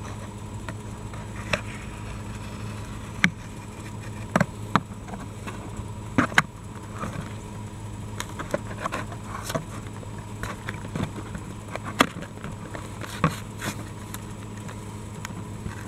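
Package being opened by hand: scattered clicks, crinkles and rustles of packaging at irregular intervals, over a steady low hum.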